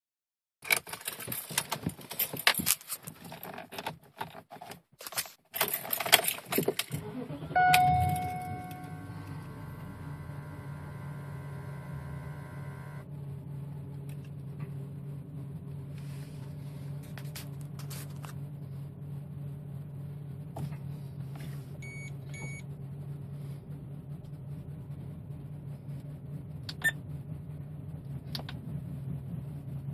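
Keys jangling and handling noise, then the 2001 BMW X5's engine starts about seven and a half seconds in and settles into a steady idle, which the owner takes for a rough idle. A short series of beeps sounds partway through the idle.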